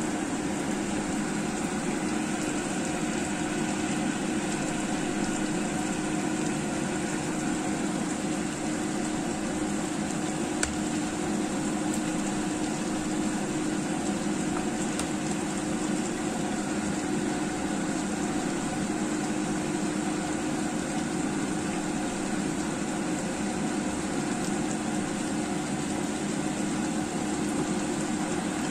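Chicken wing and potato curry simmering in a frying pan on the hob, a steady bubbling hiss under an even low machine hum. A single small click about ten seconds in.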